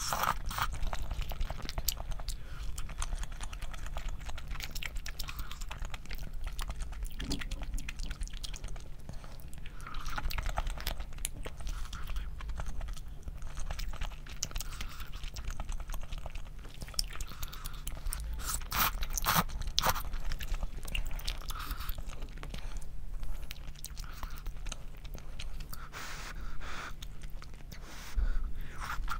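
A person eating close to the microphone: chewing and biting, with scattered crunches and short clicks throughout.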